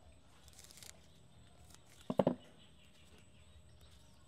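Soft rustling and snapping of tender Siamese cassia (khi lek) shoots being picked off their stems by hand, with one short, louder thump about two seconds in.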